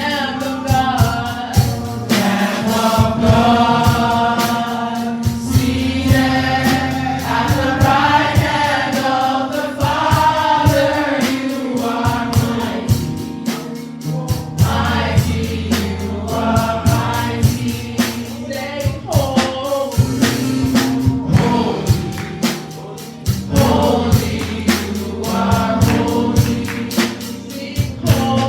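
A gospel song sung by a choir over a steady drum beat and sustained bass notes.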